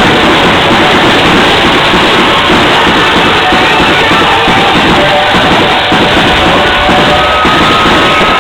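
Loud rock music with drums, playing steadily and very close to the recording's maximum level.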